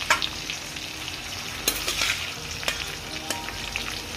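Marinated chicken pieces going into a kadhai of hot oil with curry leaves and spices, sizzling steadily, with several sharp clicks scattered through it.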